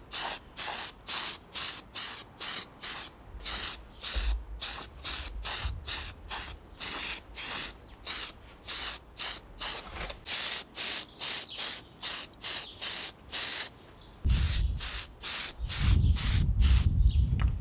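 Aerosol spray-paint can hissing in short, quick puffs, about three a second, as model parts are sprayed. A low rumble comes in near the end.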